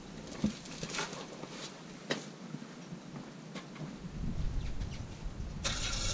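Warm used engine oil draining from the oil pan in a steady stream into a drain pan, with a light patter and scattered ticks. A low rumble comes in about four seconds in, and a brief hiss near the end.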